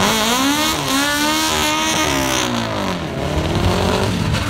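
Lada Samara drag car's four-cylinder engine revving up and down at the start line: its pitch climbs, falls away about three seconds in and climbs again near the end.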